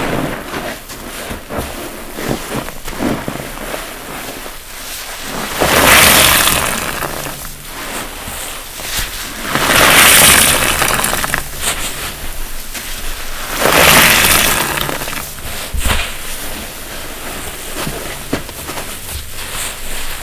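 Wet block sponges being squeezed and rinsed: three long rushes of water wringing out, about four seconds apart, with small wet crackles from the sponges between them.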